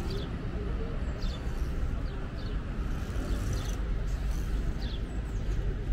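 Indistinct voices of passers-by over a steady low rumble, with short high chirps now and then.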